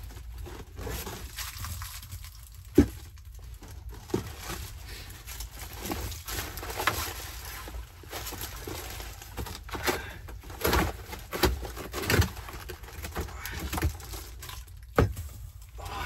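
Rustling of a nylon backpack being unpacked, with knocks as items such as plastic bottles are set down on a wooden plank floor. There is one sharp knock about three seconds in and another near the end.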